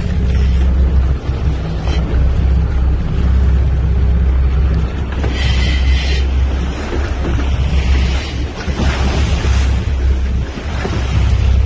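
Sportfishing boat's engines running with a steady low hum, water rushing along the hull and wind buffeting the microphone. A brief high whine sounds about five seconds in.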